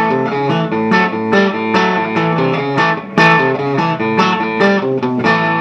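Electric guitar played through a Three Monkeys Organ Grinder valve amp, which has two 6V6 power tubes, switched to pentode mode and running full tilt. It is a loud, quick riff of picked chords and single notes, several attacks a second.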